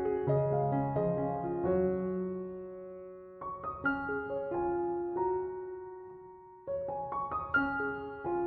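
Background music: soft solo piano, gentle chords and arpeggiated notes that ring out and fade, with new phrases beginning about a third of the way in and again past the middle.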